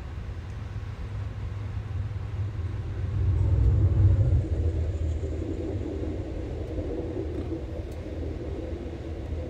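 Deep, steady rumble of an Amtrak Lake Shore Limited passenger train running on the rails. It swells louder about four seconds in, then settles into a steadier hum.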